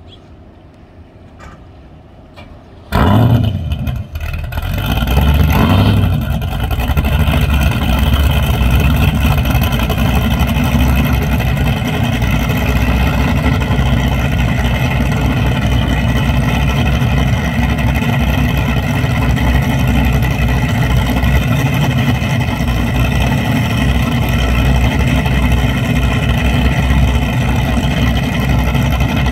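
Twin carbureted Teague 800 V8 engines of a DCB F34 catamaran starting up: the first fires about three seconds in, the sound builds again around five seconds, then both settle into a steady, loud, deep idle.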